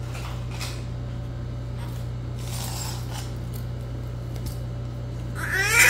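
Steady low hum with faint rustling of handling, then about five and a half seconds in a newborn baby starts a short, wavering cry, the loudest sound.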